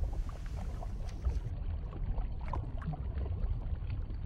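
Underwater stream ambience: a steady low rumble of moving water with faint scattered clicks.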